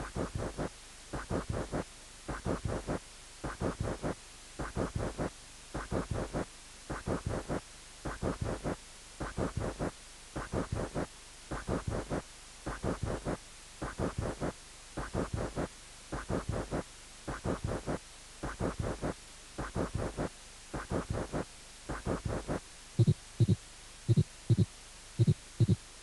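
Heart auscultation recording of a pericardial friction rub in pericarditis: a scratchy, three-part rub in each cardiac cycle (presystolic, early systolic and early diastolic), repeating about once a second. About three seconds before the end it gives way to louder, lower heartbeats in pairs.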